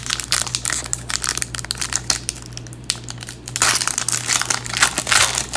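Crinkly plastic trading-card pack wrapper being torn open and handled: a dense run of crackling rustles, busiest in the second half.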